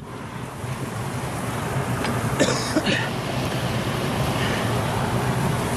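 Steady rush of water pouring through an outflow into shallow water, with a brief louder noise about two and a half seconds in.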